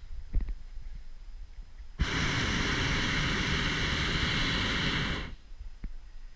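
Hot air balloon's propane burner firing in one blast of about three seconds, starting suddenly about two seconds in and cutting off a little after five seconds.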